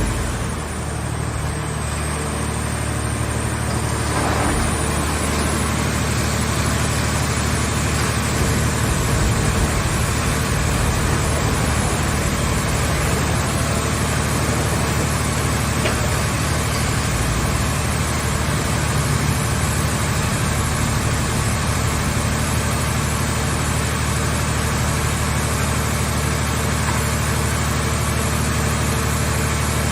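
Engine running steadily at a constant speed, the power unit of a hydraulic car-scrap baler.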